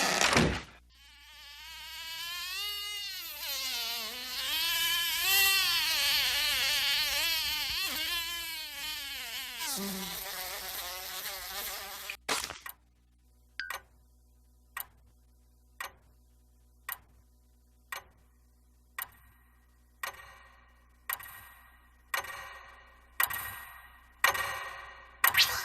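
Cartoon sound effects played in turn. First comes a buzz that wavers up and down in pitch for about nine seconds. Then come sharp clicks or hits about once a second, each ringing on longer toward the end.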